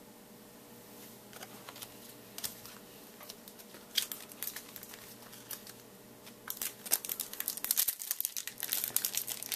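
Crinkling and tearing of a foil trading-card pack wrapper as a Topps Chrome pack is opened: scattered crackles at first, turning dense and louder about two-thirds of the way in.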